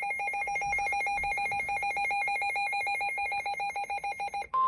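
NOAA Weather Radio alert signals: the buzzy, rapidly chattering digital data tones of the SAME header, then, near the end, a single steady high tone starts, the 1050 Hz warning alarm tone that announces a warning.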